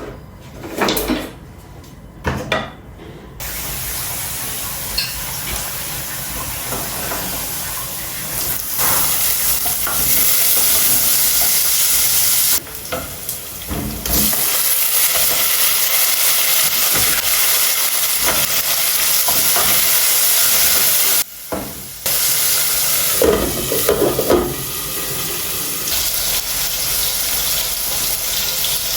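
Food sizzling in a hot pan, a steady hiss, after a few knocks of cookware in the first couple of seconds.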